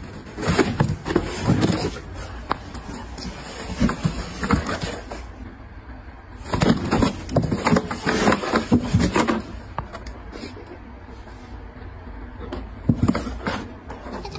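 Cardboard box scraping and rustling in several short bursts as a cat shifts about inside it and a hand works against the box's sides.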